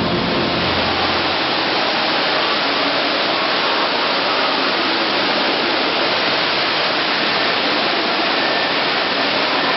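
Water jets of a show fountain spraying high and falling back into the basin, a steady loud rushing of water. A low rumble dies away about a second and a half in.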